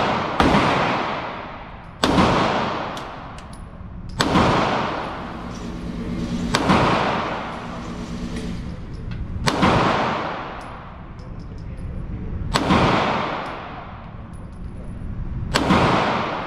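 Pistol shots in an indoor shooting range, seven single shots about two to three seconds apart, each followed by a long echoing ring-out.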